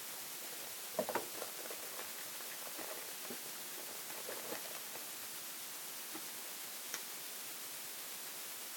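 Faint rustling and a few light clicks as small figurine pieces are handled, over a steady background hiss.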